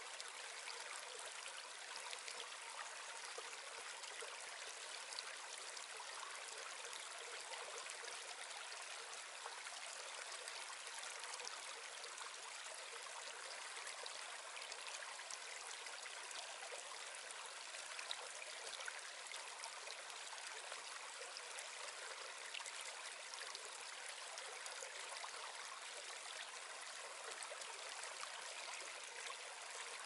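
Forest stream running steadily: an even rush of flowing water with light trickling, unchanged throughout.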